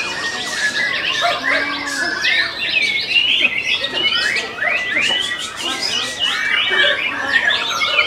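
Several caged white-rumped shamas singing at once in a dense, overlapping chorus of fast whistles, rising glides and chattering phrases, with no break.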